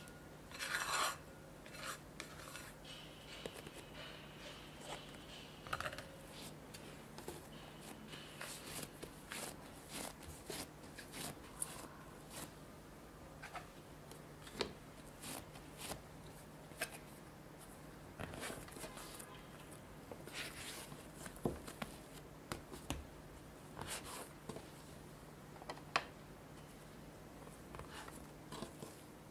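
Kitchen handling sounds from dough prep: a spatula scraping a glass mixing bowl about a second in, then scattered light taps, rubs and scrapes as the dough is handled and a dough scraper cuts through it on a wooden board. A low steady hum sits underneath throughout.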